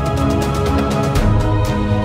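Background music with sustained notes and a steady beat; the bass line shifts to a new note about a second in.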